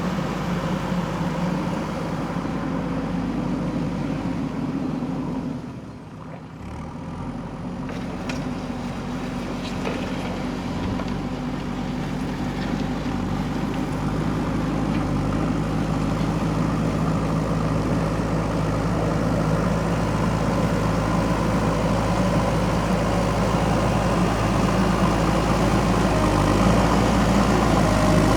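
JCB backhoe loader's diesel engine running steadily, dropping away briefly about six seconds in and then growing gradually louder toward the end.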